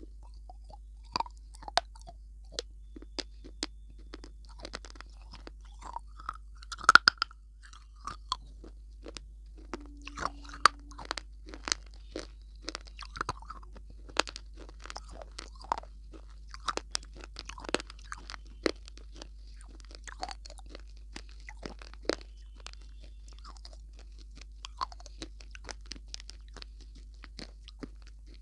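Close-miked mouth sounds of a person biting and chewing a hard, brittle food: irregular sharp crunches and clicks with softer chewing between them, the loudest crunches about seven seconds in.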